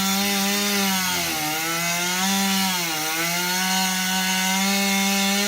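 Chainsaw engine running at high speed with a steady buzzing note, its pitch dipping briefly twice, about a second and a half in and again around three seconds.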